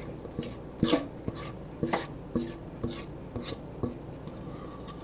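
Silicone spatula scraping batter out of a metal mixing bowl in short strokes, about two a second, some with a light knock and ring from the bowl; the strokes stop about four seconds in.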